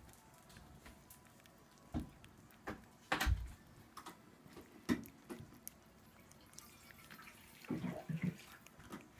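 Cat licking paste from a squeeze-tube treat: irregular wet licking and smacking clicks. The strongest is a little after three seconds in, with a quick cluster near the end.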